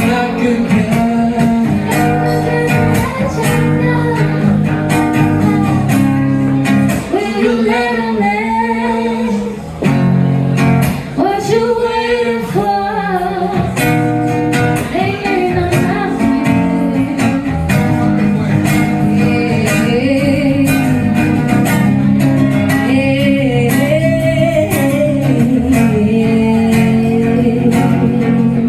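Live band music led by guitar, with singing over steady chords.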